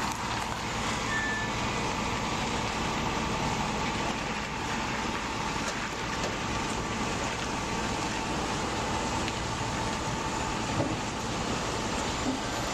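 Heavy-haul truck and many-axle modular trailer moving slowly past, a steady engine and rolling noise.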